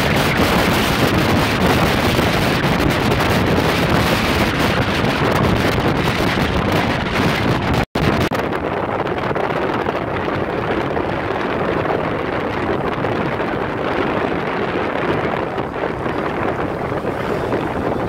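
Steady wind rushing over the microphone of a camera on a moving motorcycle. The sound cuts out for an instant about eight seconds in and comes back duller, with less hiss.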